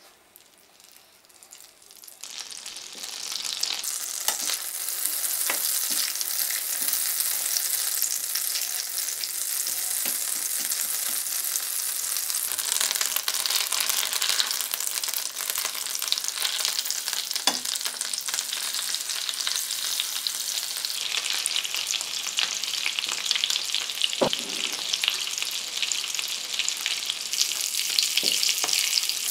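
Butter melting and foaming in hot olive oil in a nonstick frying pan, the sizzle building up over the first few seconds from almost nothing; salmon fillets are then laid in and fry with a steady sizzle, with a few soft knocks.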